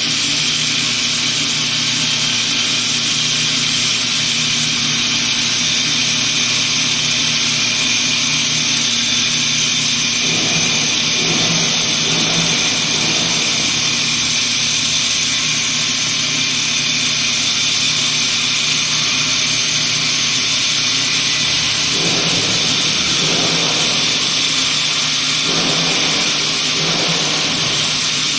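CNC wood copy lathe running: a steady machine hum under a strong high hiss, with louder patches of cutting noise about ten seconds in and again near the end.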